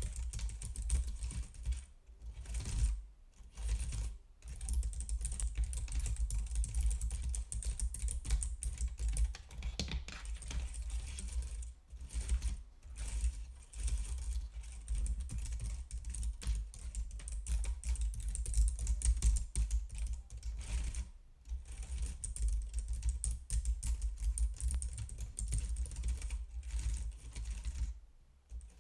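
Computer keyboard being typed on in a fast, continuous patter of key clicks, broken by a few brief pauses.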